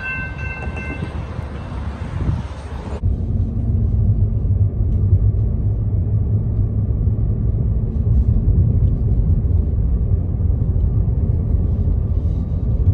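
Steady low road rumble of a car driving, heard from inside the cabin. At the very start, the tail of a held multi-tone train horn fades out about a second in.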